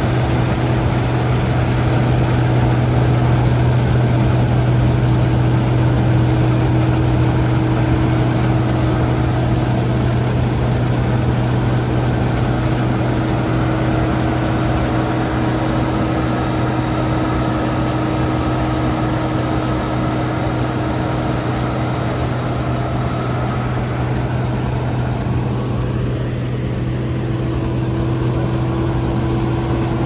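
Case IH 2388 combine harvester running steadily while cutting wheat: a loud, even engine drone with a constant low hum, with the threshing machinery turning under it.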